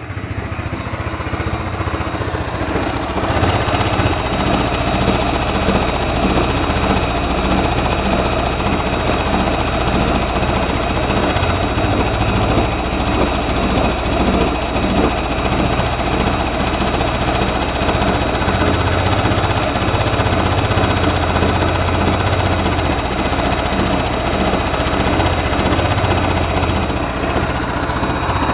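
Yamaha New Cygnus X scooter's single-cylinder engine running with an abnormal noise, rising over the first few seconds and then holding steady with a fast, even rattling rhythm.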